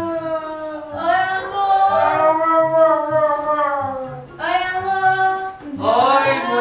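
Music with a singing voice holding long, gliding notes in phrases of one to three seconds, over a faint low pulse.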